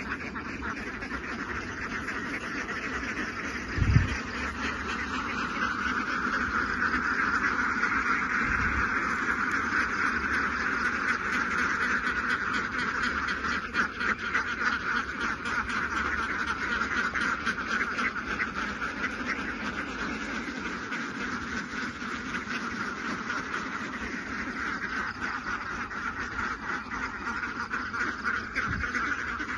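Large flock of laying ducks quacking in a dense, continuous chorus that swells a few seconds in. A few low thumps cut through, the loudest about four seconds in.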